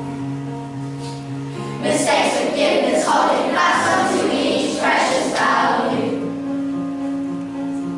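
Children's choir singing in unison with instrumental accompaniment; the first couple of seconds are accompaniment alone, and the voices come in about two seconds in.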